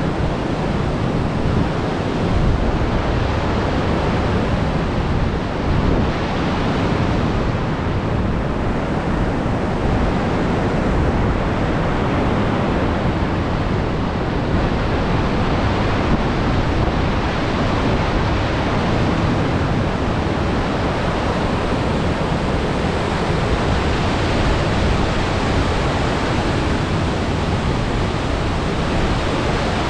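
Sugar River waterfall: a steady, loud rush of falling water, with no breaks or changes.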